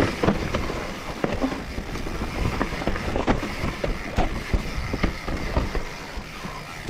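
YT mountain bike riding fast down a rooty, rocky dirt trail: tyres rolling over the ground under a steady low rumble, with frequent sharp knocks and rattles as the wheels hit roots and rocks.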